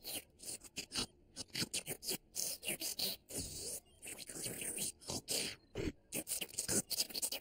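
The Noo-Noo, the Teletubbies' blue vacuum-cleaner character, making its snuffling, sucking vacuum noises: a rapid, irregular string of short hissy snorts and slurps.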